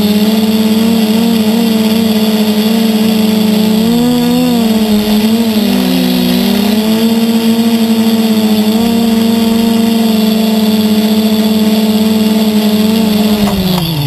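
DJI 450-clone quadcopter's brushless motors and propellers buzzing at a steady pitch, heard from on board. The pitch wavers briefly a few seconds in as the throttle changes on the way down, then falls away as the drone touches down and the motors spin down at the very end.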